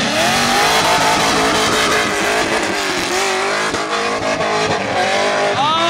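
LS V8 drift car revving hard through a drift, its engine pitch climbing at the start and then rising and falling with the throttle, over a steady hiss of spinning, squealing tires, with a sharp rev up and back down near the end. The engine is running a cylinder down with a spark plug wire off.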